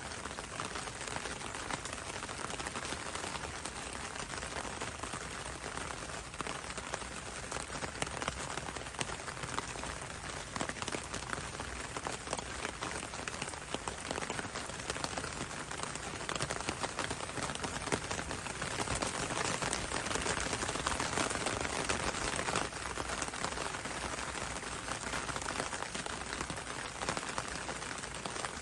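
Steady rain falling on leaves: a dense, even hiss of countless drop ticks, growing a little louder about two-thirds of the way through.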